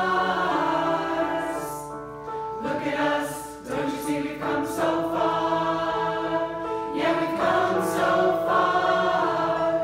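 Mixed choir of adult voices, mostly women, singing together, holding long notes with a couple of brief breaks between phrases.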